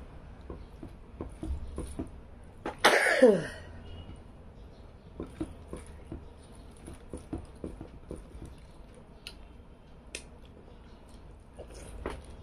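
Close-up eating sounds: chewing and small wet mouth clicks, with soft squishing as fingers mix rice and fish curry on a plate. About three seconds in, one short loud burst that drops sharply in pitch stands out above the rest.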